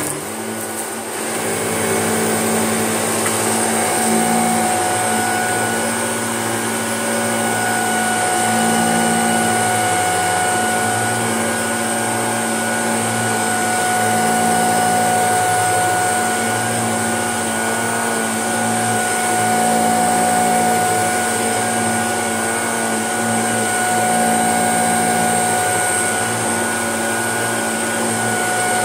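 Shark upright vacuum cleaner running steadily on a carpet mat, a constant high motor whine over a lower hum that rises and falls as it is pushed back and forth. It is going over the mat to lift leftover carpet-powder residue.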